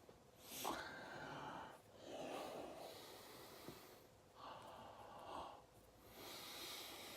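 A person breathing audibly and faintly: about four slow breaths, evenly spaced.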